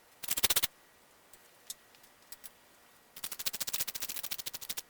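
Ratchet wrench clicking rapidly as it turns a nut or bolt: a short run at the start, a few single clicks, then a longer fast run from about three seconds in.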